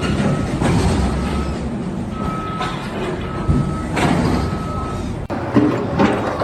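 A heavy vehicle's engine running while its reversing alarm beeps, one steady tone repeated about once a second, with two knocks near the end.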